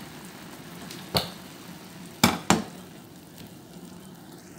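Liver steaks sizzling in oil in a frying pan. Three sharp knocks of a utensil as pieces are lifted out: one about a second in and two close together a little past two seconds.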